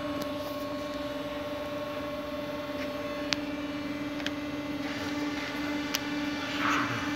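Titan SC 22 CNC vertical turret lathe running with a steady hum, with a few sharp clicks from its control panel keys and short bursts of hiss near the end.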